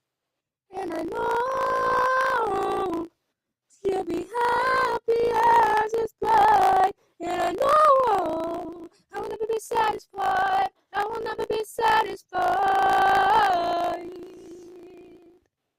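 A lone female voice singing a cappella in sustained, held notes. Phrases break off abruptly into silent gaps, and the last one fades out near the end.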